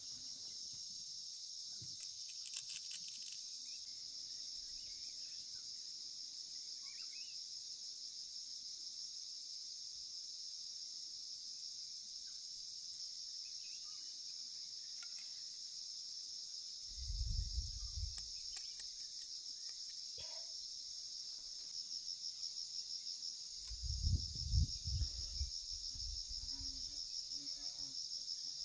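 A steady, high-pitched insect chorus that runs without a break. Twice, about halfway through and again near the end, a brief low rumble cuts in.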